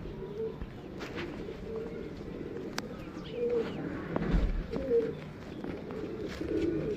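Pigeons cooing over and over, several birds overlapping in low, short coos, with scattered light clicks and a low thump about four seconds in.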